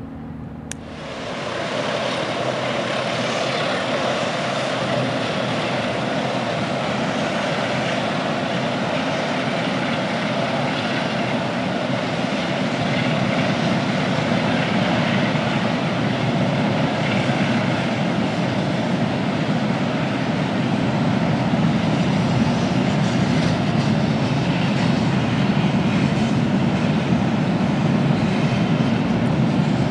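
A vessel's diesel engine running steadily, heard from aboard a barge, with a continuous rushing drone. It starts abruptly just under a second in and grows a little louder about halfway through.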